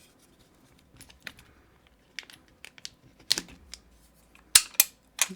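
Light clicks and clacks of a plastic lock-pick case and pick tray being handled, scattered taps growing sharper, with two loud clacks close together near the end.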